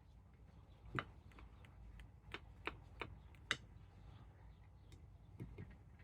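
Faint, irregular light clicks and taps, about half a dozen spread over the few seconds, of small tools and objects being handled on a work surface.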